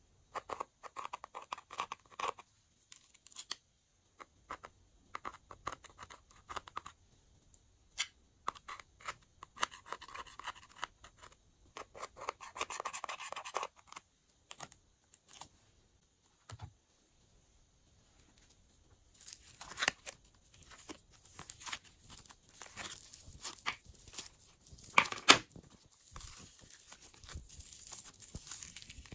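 Eyeshadow being scraped, crushed and worked for slime: short bursts of dry scraping and crackling with quiet gaps between. About two-thirds in it turns denser and hissier, with a few sharp clicks.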